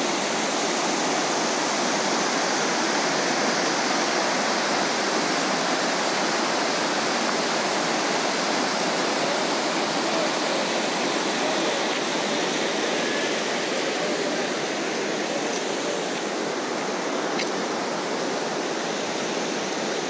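A steady rushing noise, even and unbroken, with a faint tick or two near the end.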